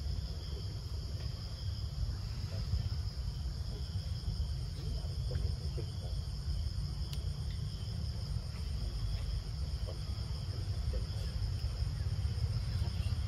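Steady, high-pitched chorus of insects, with a constant low rumble underneath.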